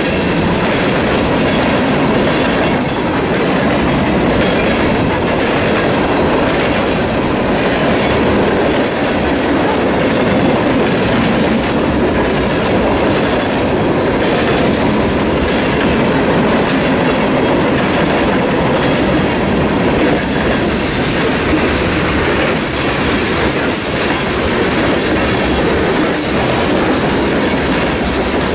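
A freight train's cars (covered hoppers, boxcars and gondolas) rolling past on a curve: steady rumble of steel wheels on rail with clicking over the rail joints. Brief high wheel squeals come about nine seconds in and again from about twenty seconds.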